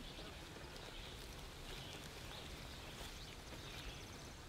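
Faint outdoor ambience: a steady low rumble with a few faint high chirps.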